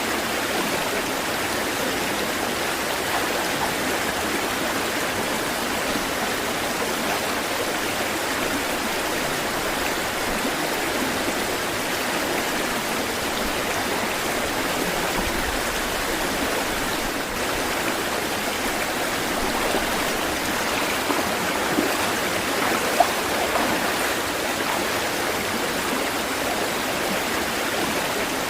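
Flowing stream water, rushing steadily and evenly, with a few faint small splashes or ticks about three-quarters of the way through.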